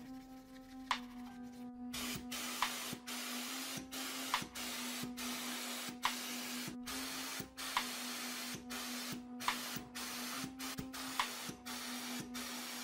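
Paint sprayer hissing in many short bursts with brief pauses between them as it coats a die-cast model car body in grey paint. The spraying starts about two seconds in, over a steady low hum.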